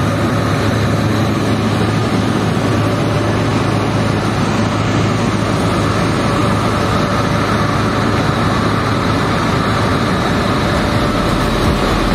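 Steady, unbroken drone of workshop machinery running, with a constant low hum under a dense wash of noise.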